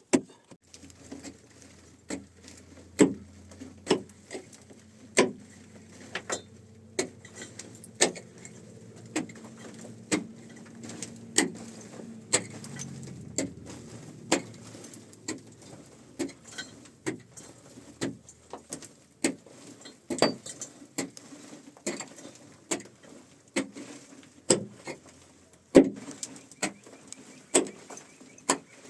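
A hand tool striking a hard surface again and again, sharp knocks roughly once a second and uneven in strength. A low steady motor hum sits under the first half, then fades out around the middle.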